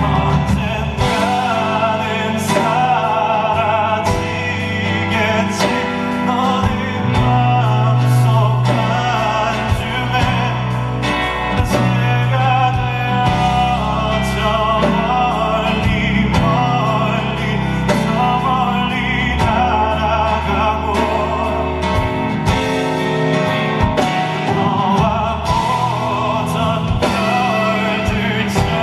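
Live band music with a male vocalist singing over drum kit, bass and keyboards.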